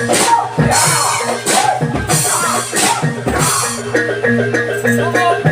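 Gamelan-style ensemble music: drums beating a steady rhythm about twice a second under struck metal mallet percussion. A wavering melody line is on top in the first seconds, and held ringing metallic notes come in about four seconds in.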